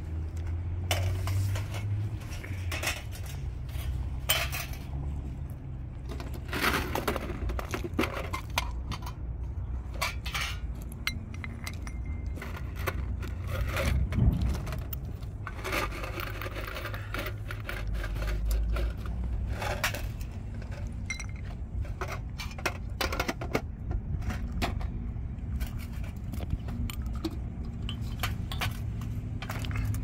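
Irregular clinking, knocking and scraping of hard objects, with a steady low rumble underneath.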